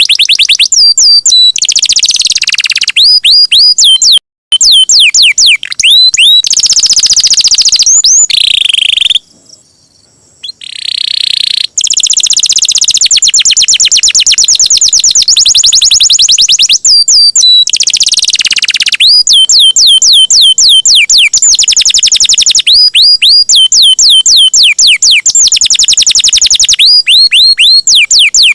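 Domestic canary singing loudly in long, rapid rolling trills and runs of fast repeated down-sweeping notes. The song breaks off for about two seconds around nine seconds in.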